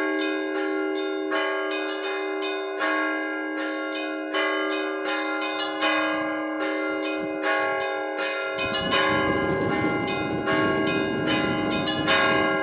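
Orthodox church bells rung by hand from the belfry, the zvon calling to evening service: quick strikes on the smaller bells, about two a second, over the steady ringing of the larger bells. A low rushing noise joins about two-thirds of the way through, and a louder strike comes near the end.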